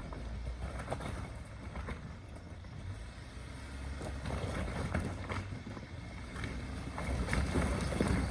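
2019 Ford Ranger's 2.3-litre EcoBoost four-cylinder engine running as the truck crawls up a loose-rock hill, with rocks crunching and clacking under the tyres. It grows louder near the end as the truck comes closer.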